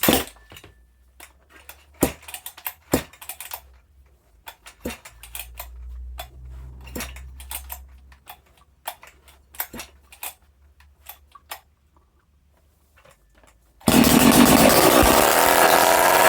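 A series of clicks and knocks, then, near the end, a rebuilt, ported Husqvarna 268XP two-stroke chainsaw suddenly fires and runs loudly with no muffler fitted. It is running on its old spark plug after a new Oregon plug failed to start it.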